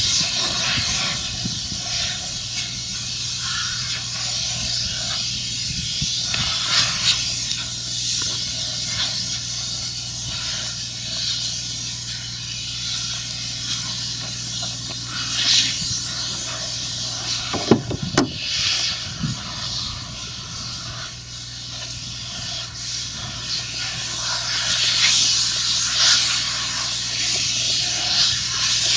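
A steady low machine hum under a loud hiss that swells and fades, with one sharp knock about eighteen seconds in.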